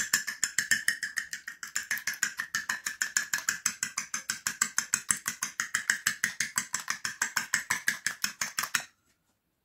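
Metal fork beating a raw egg in a ceramic plate: quick, even clicks of the tines against the plate, about seven a second, stopping abruptly shortly before the end.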